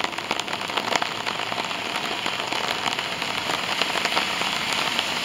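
Steady rain falling on hard ground, with many sharp ticks of drops landing close by.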